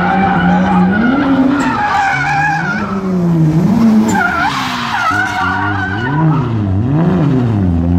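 Drift car's engine revving up and down while its tyres squeal in a slide, the squeal a wavering high tone. The revs swing more quickly, three times in a row, near the end.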